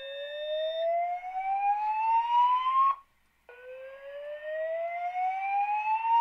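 Fire alarm speaker-strobe sounding the whoop evacuation alert tone: a tone rising steadily in pitch for about three seconds, cutting off, then a second identical whoop after a short gap. This is the alert signal of a voice evacuation system put into alarm by a pulled pull station, played ahead of the spoken message. A steady high beep sounds under the first whoop and stops about a second in.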